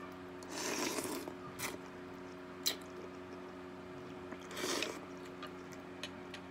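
Noodles slurped in from a soup spoon twice, about half a second in and again around four and a half seconds, with a short sharp click between them. A steady low hum runs underneath.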